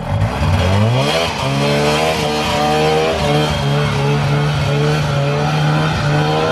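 Polaris Indy Lite 340 snowmobile's two-stroke engine revving up as the sled pulls away, rising in pitch over the first second or so, then running at a fairly steady throttle.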